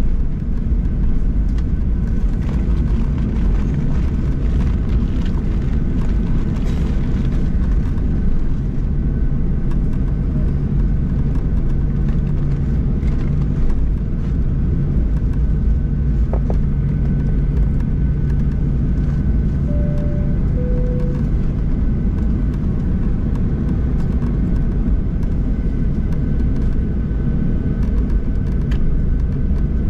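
Steady cabin rumble of a Boeing 737-800 taxiing, its CFM56-7B engines at taxi power, heard from a window seat over the wing. About 20 seconds in, a short two-note falling cabin chime sounds.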